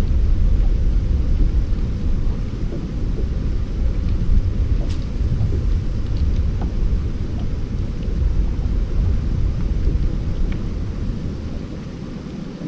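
Heavy wind buffeting a GoPro's microphone: a loud, gusting low rumble that eases off near the end.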